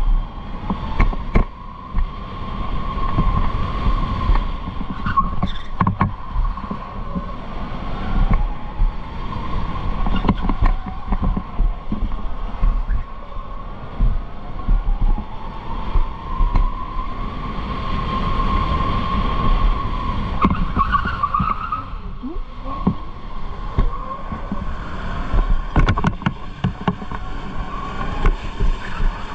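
Electric go-kart's motor whining, its pitch rising and falling with speed through the corners, over a low rumble with occasional knocks.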